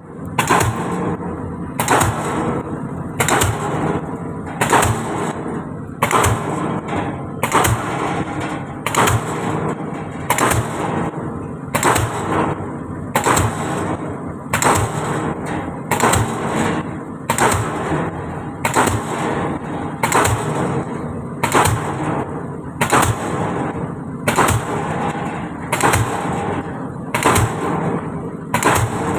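DD-25 diesel pile hammer driving a concrete pile: a steady rhythm of loud, sharp blows, the strongest about one every second and a half, over the hammer's running rumble.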